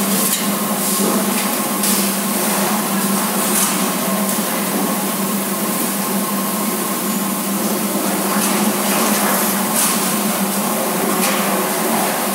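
Steady machine hum with a rushing, fan-like noise from running equipment, and a few light clicks scattered through it.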